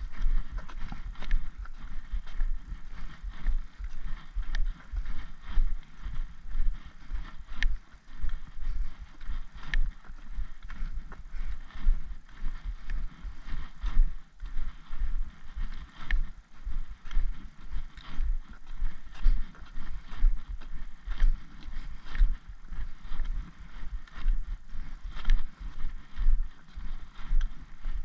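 Footsteps of a walker on a gravel-and-tarmac track: a steady rhythm of low thuds and light crunches, one with each stride.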